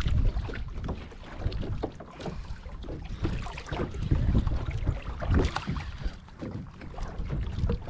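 Wind buffeting the microphone as a low rumble, with small water slaps and splashes against the plastic kayak hull scattered throughout.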